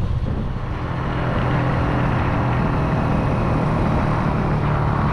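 Motor vehicle engine running steadily, a low hum under a rushing noise that picks up about a second in.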